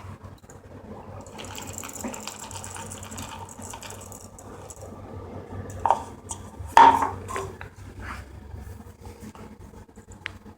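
Manual coffee grinder with 68 mm burrs being worked: an uneven rattling, crunching noise, then two sharp knocks about six and seven seconds in, followed by lighter clicks.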